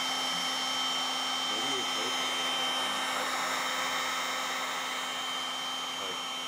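Handheld electric heat gun running steadily, its fan blowing an even rush of air with a constant hum.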